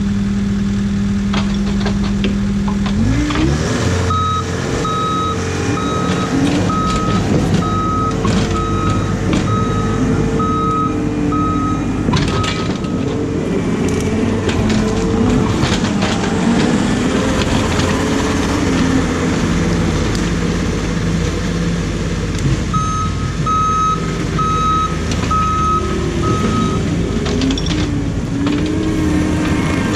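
Excavator diesel engine idling, then revving up about three seconds in and running under varying load. A backup alarm beeps about once a second in two runs, roughly eight seconds and four seconds long.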